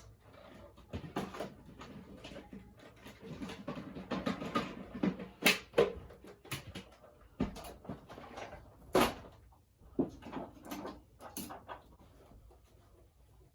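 Irregular clicks, knocks and rustling of objects being handled, with a few sharper knocks around the middle.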